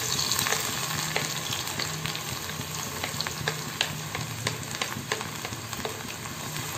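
Chopped garlic frying in hot oil in a steel pan: a steady sizzle with frequent small crackles, easing slightly as the garlic goes in.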